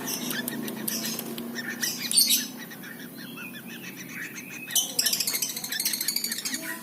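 Yellow-vented bulbul (trucukan) giving short high chirps, with a quick run of light ticks near the end.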